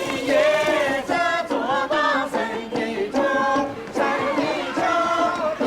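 Background music: a song with voices singing held notes.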